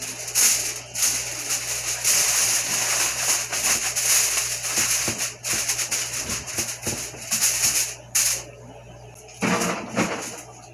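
Aluminium foil crinkling and rustling as a sheet is spread and crimped over a roasting pan, dying down about eight seconds in. Near the end, a clatter as the pan is slid into the oven.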